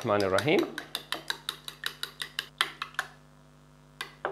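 Four eggs with salt being beaten in a bowl, the utensil clicking rapidly against the bowl, about eight strokes a second for some two seconds, then stopping. One or two single taps come near the end.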